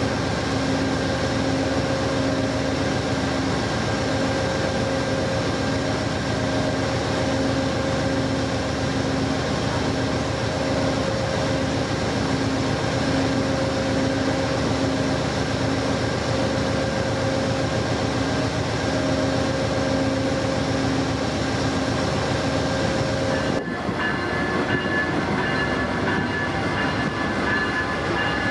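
Amtrak passenger train running: a steady rumble with a constant hum at several pitches. The hum changes abruptly near the end to a different set of higher tones.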